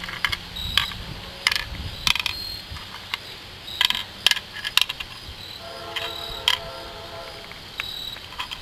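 Game pieces clicking as they are dropped one by one into the pits of a wooden mancala board, in quick, irregular clusters of small hard clicks.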